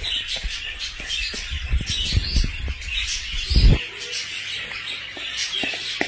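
Many small birds chirping and chattering, with a metal spoon scraping and clicking in a plastic bowl of dry egg food as it is stirred. A low rumble ends with a thump a little after three and a half seconds in.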